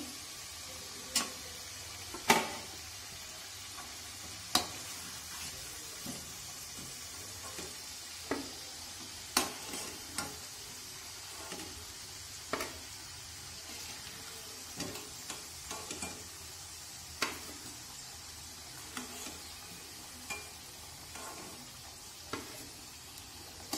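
Litti deep-frying in hot oil in a kadai with a steady sizzle. Sharp metal clinks come now and then as a steel slotted spoon knocks against the pan while the fried litti are lifted out.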